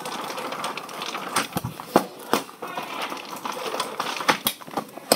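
Irregular clicks and taps over a rustling haze: handling noise from a phone held close over notebook paper.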